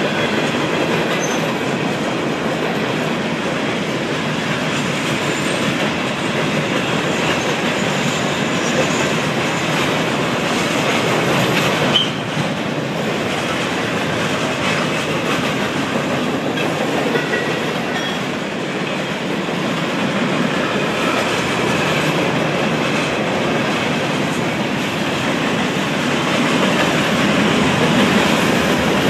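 Cars of a mixed freight train (boxcars, covered hoppers, tank cars and centerbeam flatcars) rolling steadily past on their steel wheels, with one sharp bang about twelve seconds in.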